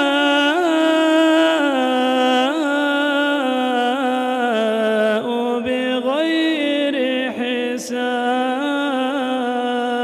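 A man reciting the Quran in a slow melodic chant, drawing out long ornamented notes that bend and waver in pitch without a break.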